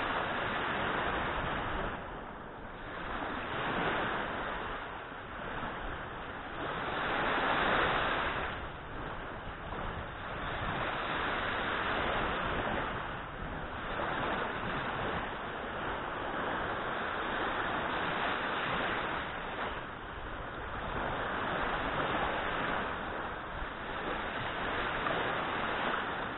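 Small waves breaking and washing up on a sandy shore, the surf swelling and easing every three to four seconds, with some wind on the microphone.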